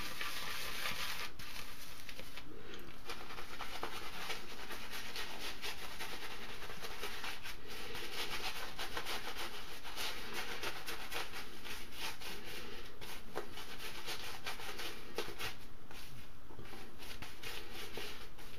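A synthetic shaving brush swirls shaving-soap lather around a wooden bowl, making a steady wet rubbing with many fine crackles. It pauses briefly about two and a half and sixteen seconds in.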